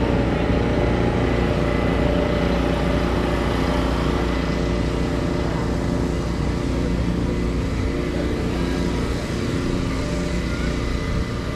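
A steady engine drone, holding the same pitch throughout.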